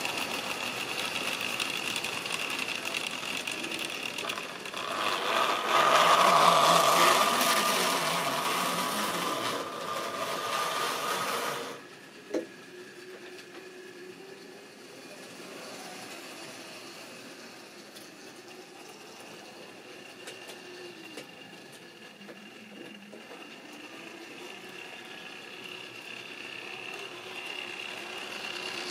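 Model railway diesel locomotive and tank wagons running on sectional track: a steady whirring of the electric motor with rattling wheels. It is loud as the train passes close, drops off sharply about twelve seconds in with a single sharp click, then runs on fainter and grows louder again near the end.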